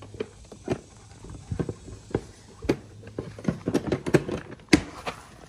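Hands working behind an ATV's plastic fender to refit the air box intake: irregular plastic knocks, clicks and rattles as the parts are pushed and flexed into place, with one sharp knock near the end.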